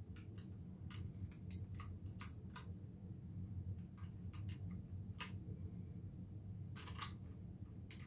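Keycaps being pressed back onto a Ducky Pocket keypad's Cherry MX Blue switches, giving a dozen or so sharp plastic clicks at uneven intervals.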